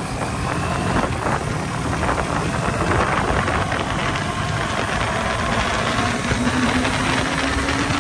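Motorcycle riding at speed: wind rushing over the microphone with the engine running underneath, its note climbing slowly in pitch over the second half.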